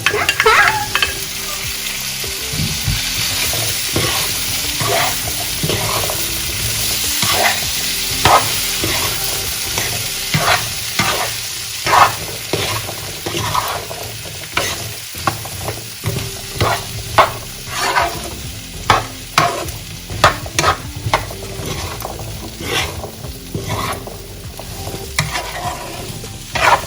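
Soaked chickpeas sizzling in hot oil with mustard seeds, onions and curry leaves as a spoon stirs them, with a steady sizzle and repeated clinks and scrapes of the spoon against the pan, coming more often in the second half.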